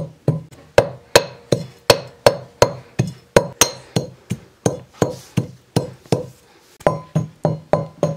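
A pestle pounding grain in a metal pot used as a mortar: steady, even strikes about two and a half a second, each with a short metallic ring.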